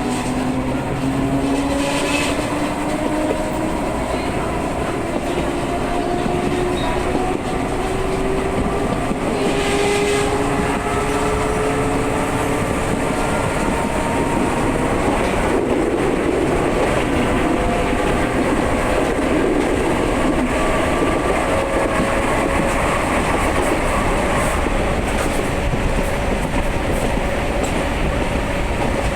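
CPTM Series 2000 electric train's ADtranz GTO VVVF inverter traction drive growling as it pulls away, its several tones rising steadily in pitch through the first half and then climbing more slowly. Wheel and rail noise runs beneath.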